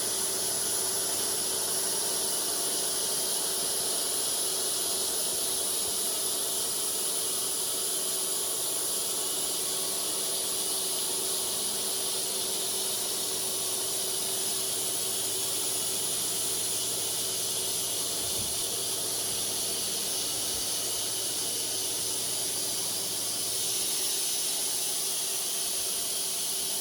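Custom-built wide band sawmill running: a steady hiss over a low motor hum, the hum dropping away about 23 seconds in.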